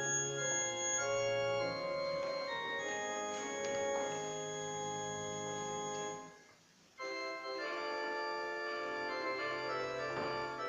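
Church organ playing slow, sustained chords that change every second or so, breaking off briefly about six seconds in before starting again.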